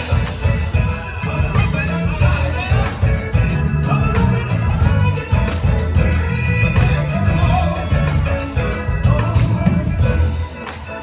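Live band music with a singer, a heavy bass line and drums.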